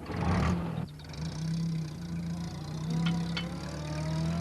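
A small van's engine starts with a short burst of noise, then runs and pulls away, a steady low hum with a slowly rising whine above it. Two brief clicks come about three seconds in.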